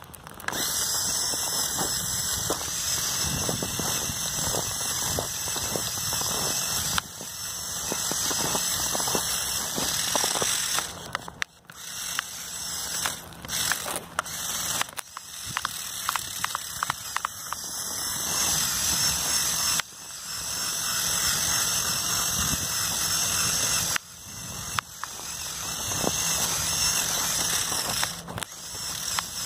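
The two Lego buggy motors of an RC snowmobile whine at high speed as it drives through snow, in runs of several seconds broken by short pauses. Crackling and clicking from the snow runs under the whine.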